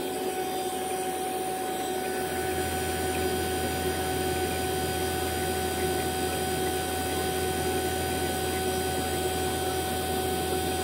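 Fieldpiece VP85 vacuum pump running steadily with an even hum, pulling a deep vacuum of about 220 microns on an empty refrigerant recovery tank.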